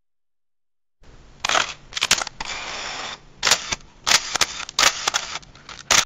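Vintage camera being wound: sharp mechanical clicks with short stretches of steady winding noise between them, starting about a second in.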